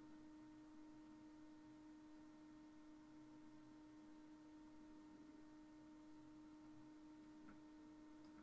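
Near silence with a faint, steady hum: one even tone and a fainter higher one over a light hiss.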